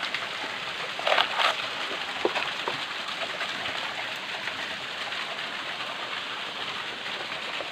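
Steady hiss of running water from a nearby stream or falls, with a brief clatter of knocks about a second in.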